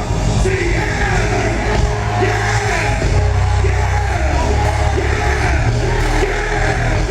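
Live R&B band playing loudly with singing and yelling voices over a heavy, steady bass.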